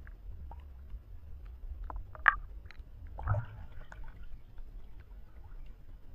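Lake water dripping and splashing around a person wading in wet clothes, with scattered small drips, one sharp splash about two seconds in, and a louder slosh with a low thump just after three seconds.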